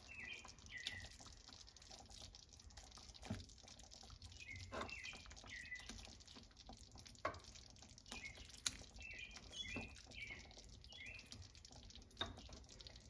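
Faint soft knocks as six tandoori chicken drumsticks are set one at a time into thick simmering sauce in a pan with silicone tongs, about one every second or two. Small high chirps sound faintly between them.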